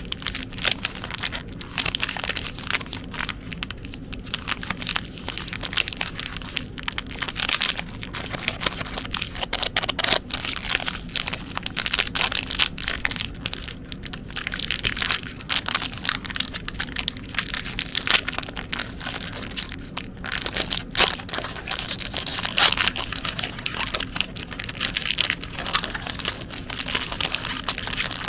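Chocolate packaging being handled and opened: continuous crinkling and crumpling with many sharp little cracks, and now and then a tearing sound.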